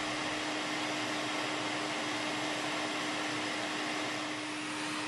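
Hot-air rework station blowing a steady stream of air through its nozzle onto a circuit board: an even rushing hiss with a faint constant hum.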